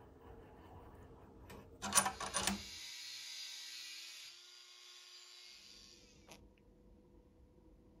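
A quick run of sharp clicks about two seconds in, then an angle grinder's cutting disc cutting through a threaded steel bolt: a steady high hiss for about three seconds.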